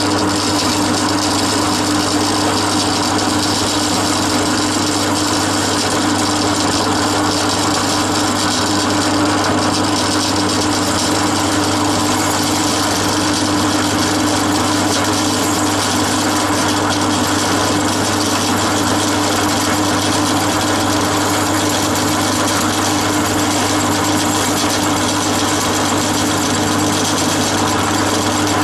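Bench drill press running steadily while a homemade tool-steel boring cutter enlarges the barrel bore of a VW Beetle 1200 crankcase to take 1600 barrels: a constant machine hum with a strong steady tone.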